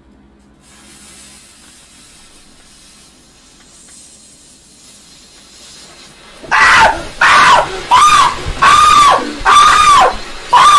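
Firework fountain hissing faintly as it sprays sparks. From about six and a half seconds in, a man screams loudly over and over in short, high-pitched yells.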